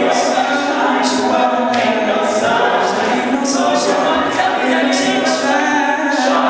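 Male a cappella group singing in close harmony: sustained chords over a steady low bass note, with short crisp high accents scattered through.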